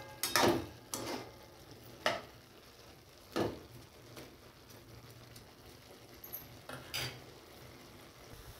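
A metal slotted spoon stirring and scraping vermicelli against an aluminium kadhai: several short scrapes over the first few seconds and one more about seven seconds in. Under them is a faint steady sizzle from the pan on a low flame.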